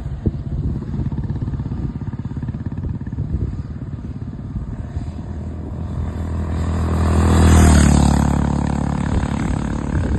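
Honda CB350 H'ness's air-cooled single-cylinder engine thumping steadily while cruising at about 120 km/h. A louder rush of noise swells and fades about seven to eight seconds in.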